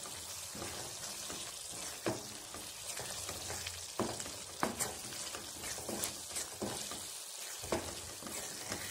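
Thick chicken curry gravy sizzling in a pan while a spatula stirs it, with a steady hiss. The spatula knocks sharply against the pan half a dozen times.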